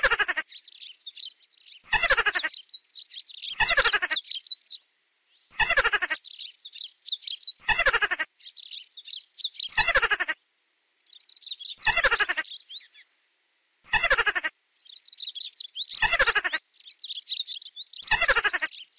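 Mouse squeaking sound effect: a wavering squeak that falls steeply in pitch, repeated about every two seconds, with high-pitched chirping in between.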